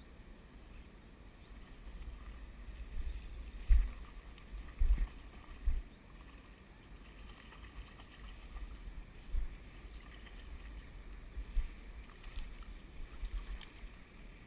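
Low rumble of wind and handling on a GoPro's built-in microphone, with a few dull bumps, the loudest about four seconds in and again near five and six seconds.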